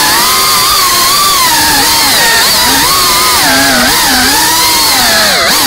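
FPV racing quadcopter's brushless motors and propellers whining, the pitch swooping up and down with the throttle and dropping sharply near the end as the throttle is cut.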